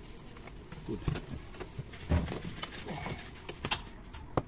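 Irregular clicks and knocks from hands handling the metal pump head and plastic housing of a dismantled electric pressure washer during repair, with a louder knock about two seconds in and a sharp click near the end.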